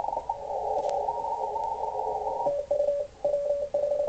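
Icom IC-7600 transceiver receiving Morse code on the 80-metre CW band. First a hiss of band noise with several overlapping CW signals squeezed through the narrow receive filter, then from about halfway a single strong station keying a steady tone in dots and dashes.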